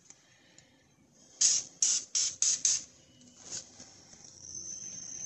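Aerosol can of Fluid Film rust inhibitor sprayed in about five short quick hisses, then one fainter one. A faint steady high-pitched tone starts near the end.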